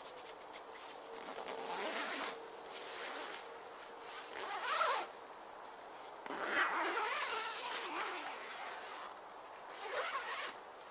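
Tent door zip being pulled shut in about four separate runs, each a second or so long with short pauses between, as the large side door of a single-skin one-man tent is zipped closed from inside.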